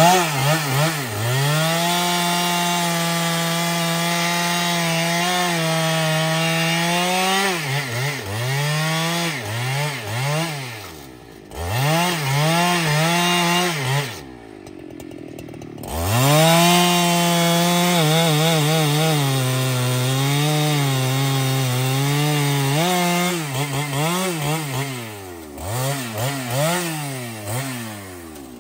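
Husqvarna 395XP chainsaw, a 94 cc two-stroke, cutting through a thick rain-tree log. It holds full throttle for two long cuts, broken by quick revs. It drops to idle for a couple of seconds midway, and in the second cut the engine pitch sags as the chain bogs in the wood.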